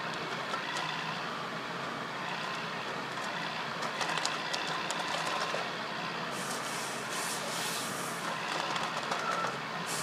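Wheeled forestry harvester running steadily at work, its engine and hydraulics making a continuous mechanical noise with a faint whine. A run of sharp clicks and cracks comes about four to five seconds in, and bursts of hiss follow a couple of seconds later.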